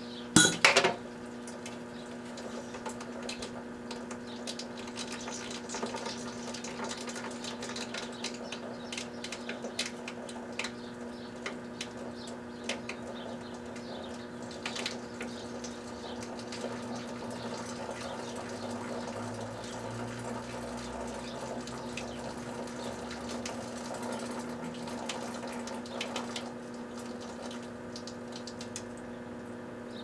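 Microwave oven humming steadily with watch batteries inside, crackling and ticking as they arc and burn. A loud double bang about half a second in, as a battery bursts.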